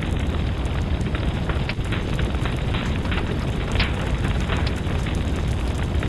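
Fire crackling in a fireplace: a steady low rumble of burning, with frequent sharp snaps and pops scattered irregularly throughout.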